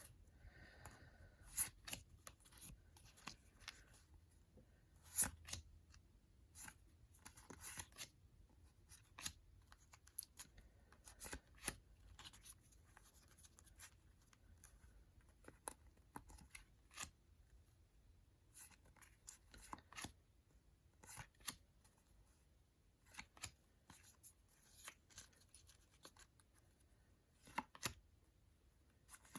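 Faint irregular rustling and crinkling of sticker packets being torn open and the stickers handled and flipped through, with scattered sharper clicks.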